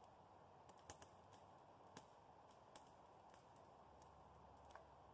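Faint campfire crackling: irregular small pops and snaps, about two a second, over a quiet background hiss.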